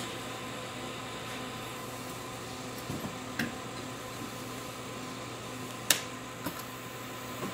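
Steady mechanical hum of running test equipment, broken by a few light clicks and knocks. The sharpest click comes about six seconds in, as a button on the valve test rig's counter control box is pressed.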